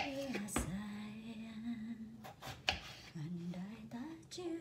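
A woman humming a slow melody in long held notes, with a few sharp knife taps on a cutting board as she cuts potatoes into small pieces.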